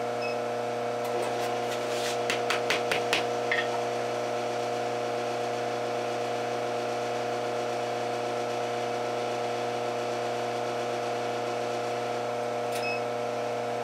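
A steady electrical hum from the induction heater, with a quick run of about seven knocks about a second in: a wooden 1x2 striking the hot wire against a 2x4 block to forge-weld the two halves of a wheat twist.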